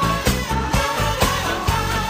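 Background pop music with a steady beat, about two beats a second, under a sustained melody line.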